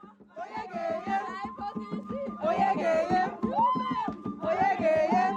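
Music: a song with a sung melody over a steady drum beat.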